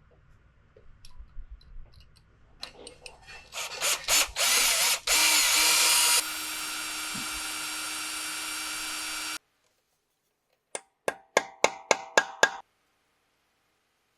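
Electric drill boring into a broken bolt in the ATV's engine case to make a hole for an easy-out extractor. It whines in several short trigger bursts, then runs steadily for about three seconds before stopping abruptly. Near the end come a quick string of about seven short blips of the trigger.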